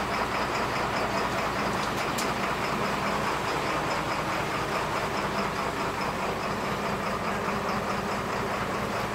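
Boat engine idling steadily with an even low throb.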